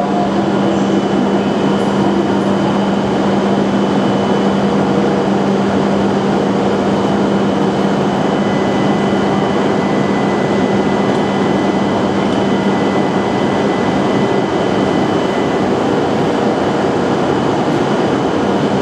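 Hokuriku Shinkansen train running steadily at the station platform, a dense even noise with a low steady hum and a high whine. A second, fainter whine comes in about halfway through and stops a few seconds later.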